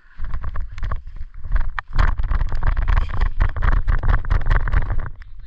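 Heavy rumbling buffeting and handling noise on the microphone, with many quick clicks and rustles of moving gear, loudest from about two seconds in and easing near the end.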